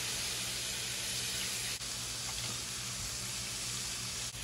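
Sailfin catfish fillets frying in hot vegetable oil in a frying pan: a steady, even sizzle, with a low steady hum underneath.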